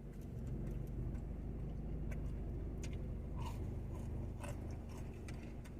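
A person chewing crispy fried chicken nuggets with the mouth close to the microphone: faint, irregular crunches and clicks over a steady low hum.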